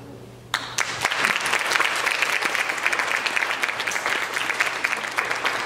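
Audience clapping, starting about half a second in.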